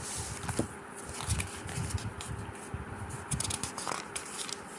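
Paper pages being turned and handled, rustling with irregular small crackles, busiest a little after the middle.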